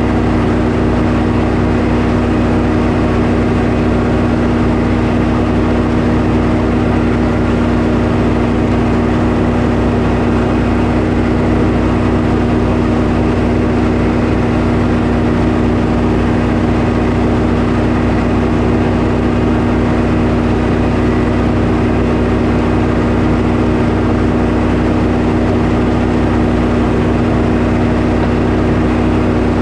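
Portable sawmill's engine running loud and steady, with no change in pitch or level.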